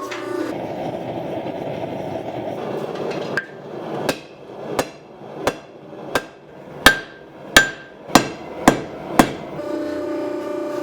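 Hand hammer striking hot steel on an anvil while forging a knife blade: about ten sharp, ringing blows a little over half a second apart, coming slightly faster towards the end. A steady rushing noise comes before the blows and continues faintly under them.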